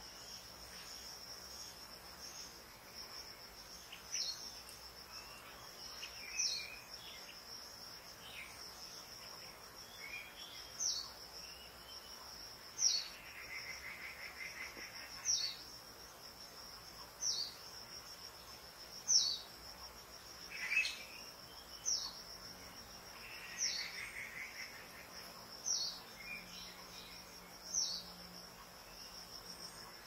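Forest ambience: a steady high insect trill, with a short, sharp, downward-sliding bird call repeated about every two seconds, a dozen times in all.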